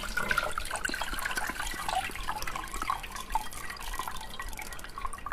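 Water running and dripping off a lifted jelly mould into a glass bowl of water, with many small drips and taps.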